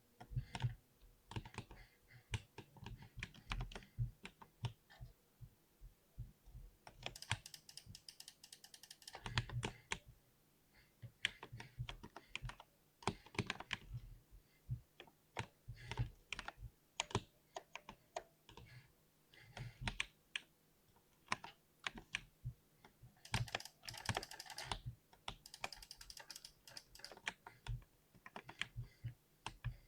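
Mechanical keyboard with Cherry MX Silver linear switches being typed on: an irregular run of keystroke clicks, with two spells of fast, dense typing about seven and twenty-three seconds in.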